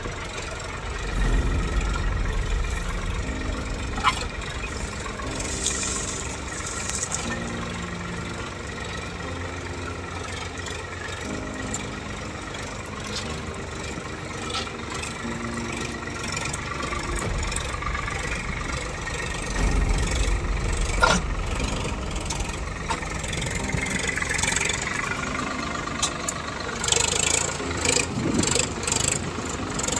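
Swaraj 742 XT tractor's three-cylinder diesel engine running steadily under a cultivator, with a sharp knock about four seconds in and another about 21 seconds in.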